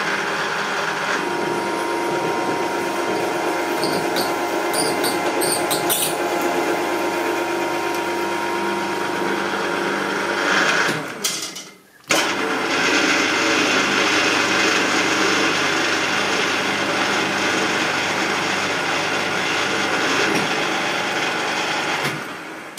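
Milling machine's spindle turning a 3/4-inch UNC tapered tap into a mild steel plate, running steadily with a constant hum. It stops about halfway through, then runs again while the tap is brought back out of the hole, fading near the end.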